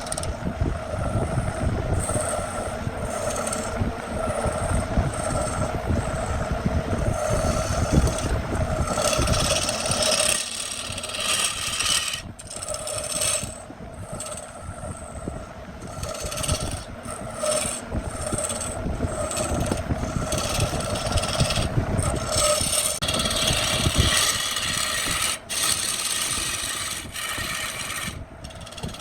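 Wood lathe running with a steady whine while a spinning wood-and-epoxy blank is worked, giving an irregular scraping, rasping sound that comes and goes.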